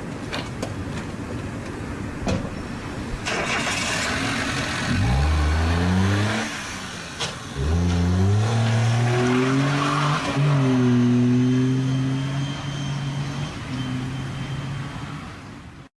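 Car engine accelerating hard: its pitch climbs, drops at a gear change, climbs again and then holds fairly steady. It cuts off suddenly at the end.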